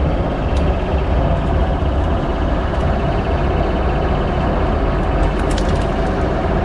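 A fishing boat's engine runs with a steady, even drone. A few brief clicks come over it, about half a second in and again near the end, as live pomfret flap against a plastic crate.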